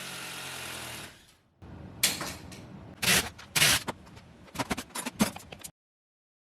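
Kitchen demolition: about a second of steady whirring noise, then a string of sharp knocks, bangs and scrapes as cabinetry and materials are pried and pulled apart. The sound cuts off abruptly.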